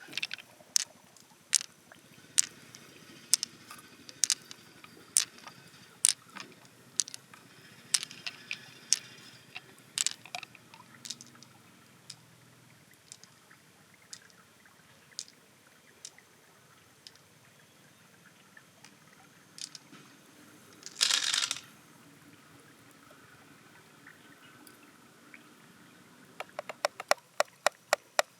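Scattered sharp clicks and taps of hard objects knocking together, with a short scraping rush about 21 seconds in and a quick run of clicks near the end.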